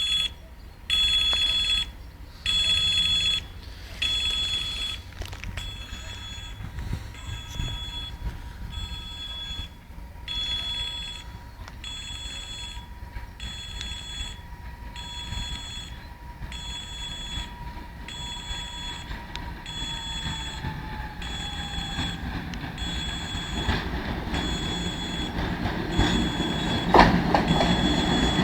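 A railway warning signal rings over and over, about once a second, while an approaching train grows steadily louder. A steady whine slides down in pitch about twenty seconds in.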